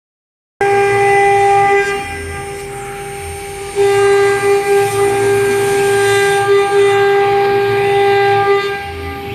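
CNC router's spindle running with a steady high whine, starting suddenly just after the start. It gets louder and quieter by turns: loud for the first second or so, softer for about two seconds, then loud again until near the end.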